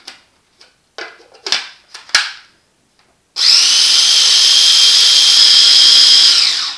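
A few short knocks as the small electric food processor is handled. About three seconds in, its motor starts and runs with a steady high whine, chopping kale and garlic, then winds down as it stops near the end.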